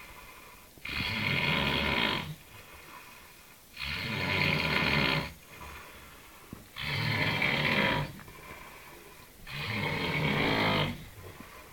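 A man snoring: four long snores about three seconds apart, each lasting over a second, with quieter stretches between.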